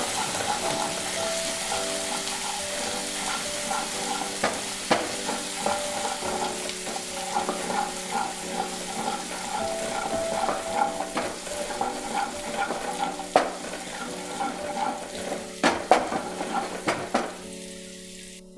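Ginger, garlic and green chilli paste sizzling in hot oil in a kadai on low flame as it browns. A spatula stirs through it, scraping and tapping the pan now and then.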